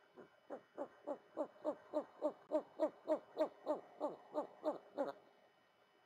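An animal calling: an even run of about seventeen short notes, three or four a second, each sliding down in pitch, stopping about five seconds in.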